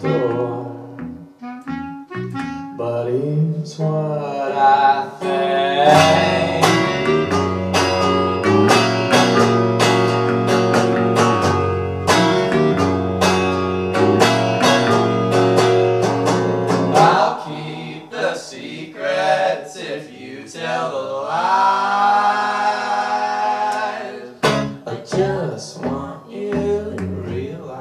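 A small band playing live: a semi-hollow electric guitar strummed in a steady rhythm over bass guitar notes, with clarinet and a man singing.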